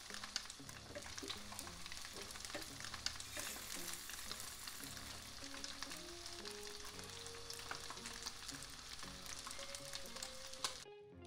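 Cooking oil sizzling and crackling steadily around tofu-and-potato patties pan-frying in a non-stick pan, with soft background music underneath. The sizzle cuts off suddenly near the end, leaving only the music.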